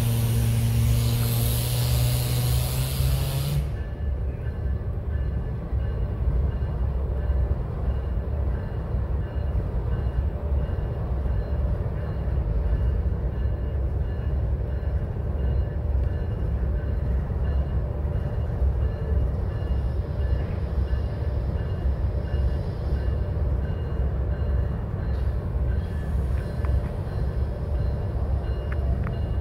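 A loud hiss of air venting, with a steady low tone under it, cuts off sharply about four seconds in. After that comes the steady low rumble of a CSX GE diesel-electric locomotive running as it approaches slowly.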